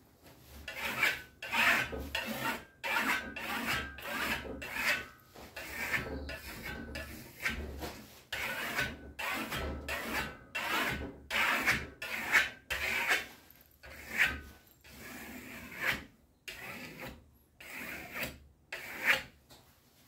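Steel plastering trowel scraping and rubbing across a black marmorino lime-plaster sample board in repeated short strokes, roughly one or two a second, with brief pauses between them.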